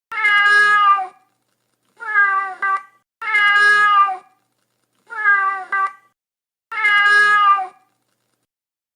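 Domestic cat meowing: five separate meows, each under a second long and dropping slightly in pitch at the end, with silent gaps between them.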